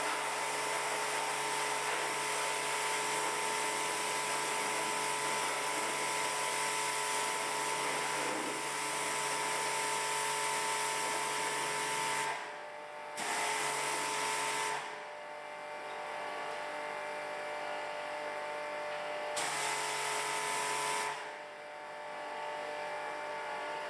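Pressure washer running: a motor hum under the hiss of the water jet spraying the engine bay. The spray stops about halfway through, then comes back in two short bursts of a second or two each, with a fainter hum left between them.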